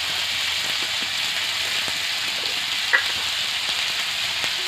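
Potato wedges frying in hot oil in an aluminium kadai: a steady sizzle, with a single sharp click about three seconds in.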